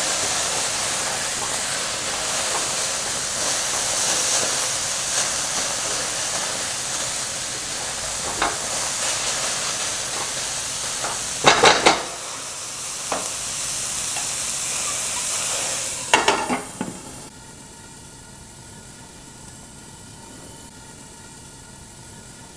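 Chopped onions sizzling in a dry stainless steel pan with no oil, stirred with a spatula, with a few clinks along the way. About two-thirds of the way in a clatter comes as a glass lid is set on the pan, and the sizzle drops to a much quieter, muffled hiss.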